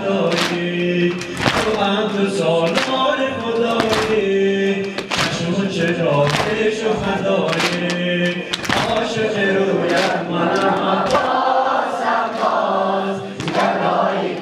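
A man chanting a Shia noha (mourning lament) through a microphone and loudspeaker, with voices of mourners joining in, while rhythmic hand slaps of chest-beating (sineh-zani) keep time at about one and a half a second.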